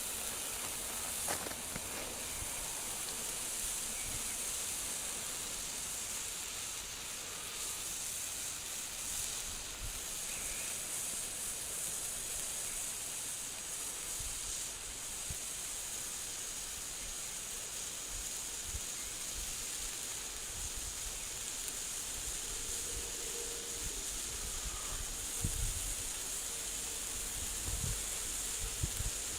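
Cosmos Fireworks hand-held colour fountain firework burning with a steady, high hiss of spraying sparks. A few soft low knocks come near the end.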